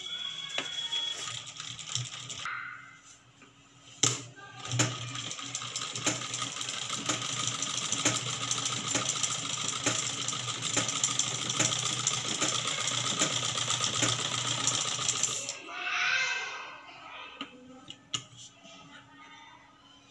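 Black domestic sewing machine running steadily, its needle mechanism clattering in fast even ticks as it stitches fabric. It starts with a click about four seconds in and stops about five seconds before the end, followed by a few light clicks.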